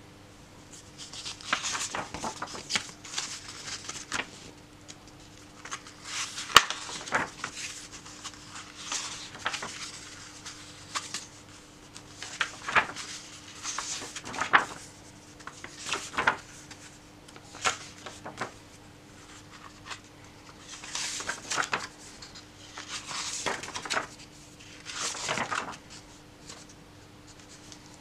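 Pages of a paper colouring book being turned one after another by hand, a swish and rustle of paper every second or two, with a few sharp taps, the loudest about six and a half seconds in.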